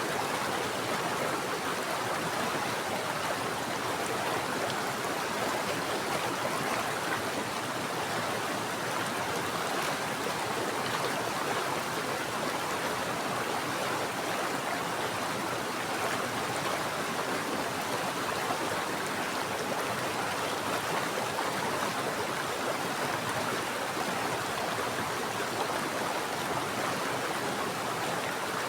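Steady rush of flowing mountain stream water, an even hiss with no breaks or changes.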